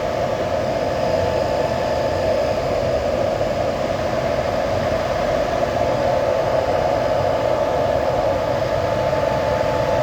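Steady whir of the cooling fans in containers packed with Bitcoin mining machines, a constant noise with a hum-like band in the middle and no change throughout.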